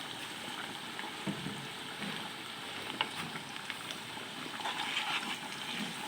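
Finely sliced onions frying in oil in a kadai, a steady sizzle with a few short clicks, as they turn brown for beresta.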